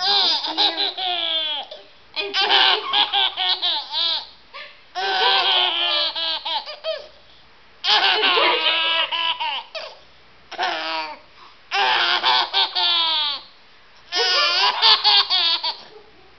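Baby laughing hard in repeated fits: about seven bouts of high-pitched laughter, each a second or two long, separated by short pauses.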